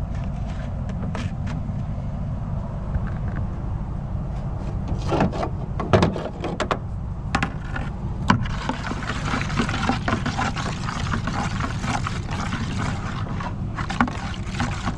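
An engine running steadily in the background, with a few sharp knocks and clatter of a plastic container being handled about five to eight seconds in, then a louder, steady rushing noise from about eight seconds on.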